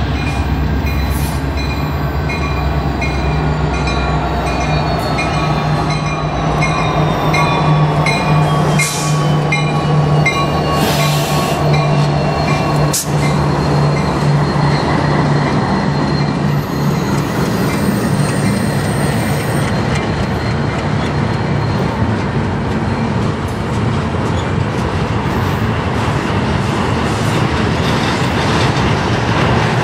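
Canadian National diesel-electric freight locomotives pass close by with a steady low engine drone. After about fifteen seconds this gives way to the rumble and clatter of double-stack container cars rolling past on the rails.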